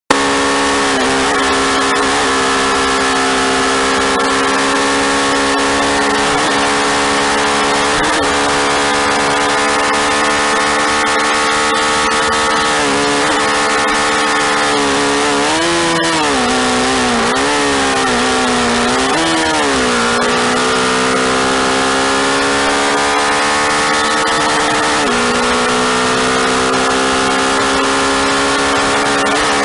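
Motorcycle engine running hard at speed, heard from the rider's seat under a heavy rush of wind and road noise. The engine pitch dips and climbs several times about halfway through, then settles and steps down slightly later on.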